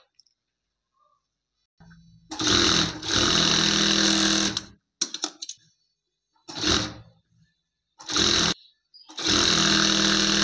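Electric sewing machine stitching a seam in bursts. It is quiet for the first two seconds, then the motor runs for about two and a half seconds. A few brief blips and short runs follow, and a longer run starts near the end.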